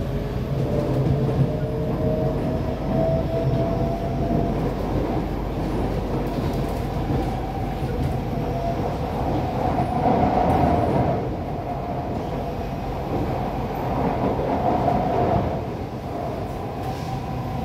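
Inside a Kawasaki-Sifang C151B metro carriage under way: the steady rumble of wheels and running gear on the rails. A whine climbs in pitch over the first few seconds as the train gains speed. The noise swells twice, around the middle and again a few seconds later.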